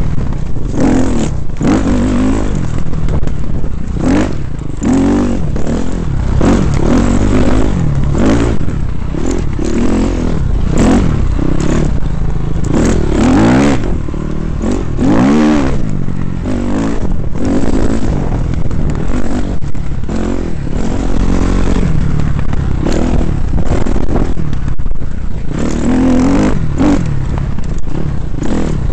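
KTM 250 XC-F four-stroke single-cylinder dirt bike engine, revving up and down over and over as the bike is ridden on a trail, with scattered knocks and scrapes.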